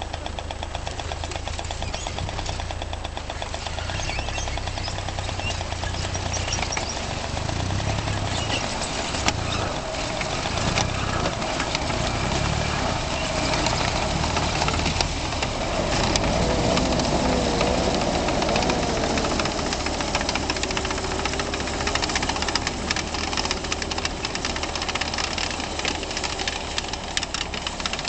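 Engines running as a GAZ-66 truck tows a GT-SM (GAZ-34039) tracked carrier on a strap to bump-start it, because the carrier's battery is flat. The carrier's tracks clatter with a stream of fine ticks. A wavering whine rises over the engines a little past halfway.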